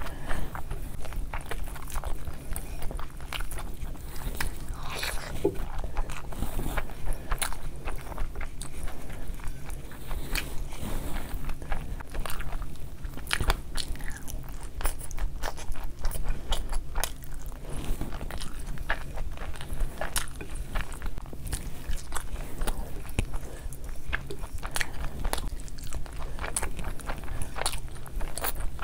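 Close-miked eating sounds: chewing handfuls of chicken biryani, with frequent wet mouth clicks and smacks.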